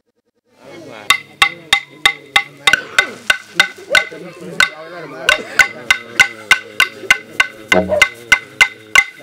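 Yolŋu manikay song starting: voices singing over clapsticks struck at a steady beat, about three strikes a second. A short low drone comes in near the end.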